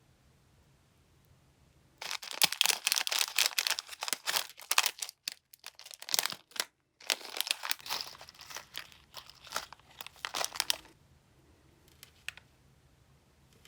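Crinkling and rustling handling noise, dense and crackly, starting about two seconds in and stopping about eleven seconds in, broken near the middle by a short dead-silent gap.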